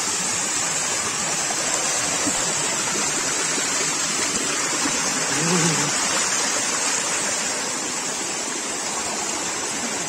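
Steady rushing of a small waterfall and stream pouring over rocks.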